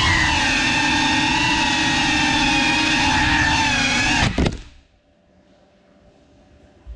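GEPRC CineLog35 cinewhoop's brushless motors and ducted propellers whining steadily with small pitch wobbles, heard through the onboard GoPro. About four and a half seconds in the whine stutters, dips and cuts off as the drone comes to rest and the motors stop, leaving faint room tone.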